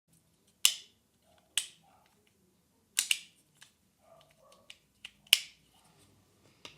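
Unboxing handling sounds: a series of sharp clicks and snaps, the loudest four or five about a second apart, with light knocks and soft rustling between them.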